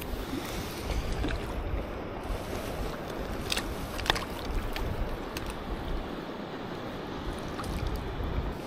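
Water lapping under a low rumble of wind on the microphone, with a few sharp splashes about three and a half to four seconds in as a hooked trout thrashes at the surface while being netted.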